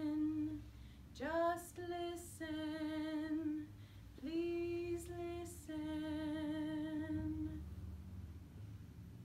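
A woman's solo voice singing a slow song in long held notes with vibrato, the phrases separated by short pauses; the last note fades out about three-quarters of the way through.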